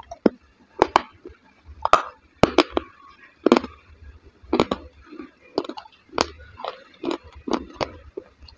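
Close-miked eating of dahi vada, soft lentil fritters soaked in yogurt: wet chewing with sharp lip and tongue smacks, about two a second.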